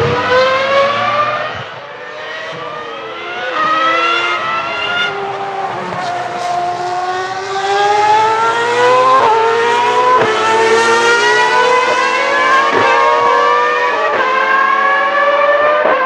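Ferrari Formula One cars' high-revving racing engines accelerating past, several engines overlapping, each rising in pitch. In the second half the rising note is cut by a string of sudden drops as the cars shift up through the gears.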